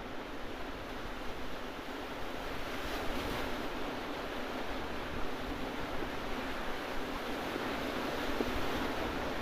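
Merced River whitewater rapids rushing: a steady, even wash of water noise.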